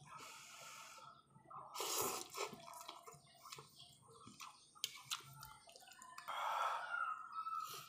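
Slurping and sipping of ramyun noodles and broth from a spoon, loudest about two seconds in and again in a longer slurp near the end, with a few light clicks of the metal spoon against the ceramic bowl.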